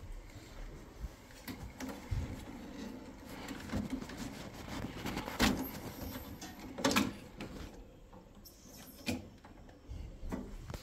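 Hands working on the circulating pump head inside an open Worcester Bosch Greenstar boiler while it is being changed: scattered clicks and knocks of handling, two louder knocks past the middle.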